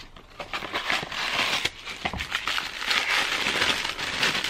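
Tissue paper being unwrapped by hand: a dense rustle full of small crackles that builds about a second in and is loudest near the end.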